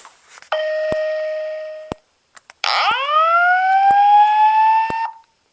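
EST Genesis G4RF-S7VM speaker strobe sounding its evacuation tone. First comes a steady tone that fades over about a second and a half, then a slow whoop rising in pitch for about two and a half seconds. A short tick about once a second is the strobe flashing.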